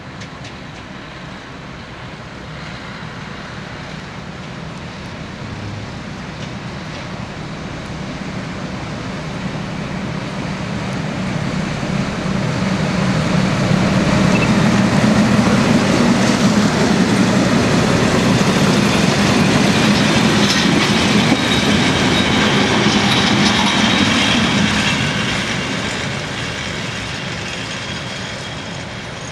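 DSB Mo-class diesel railcar 1846 pulling coaches, approaching and passing close by: the engine and the wheels on the rails grow steadily louder, are loudest a little past the middle, then fade as the train moves away.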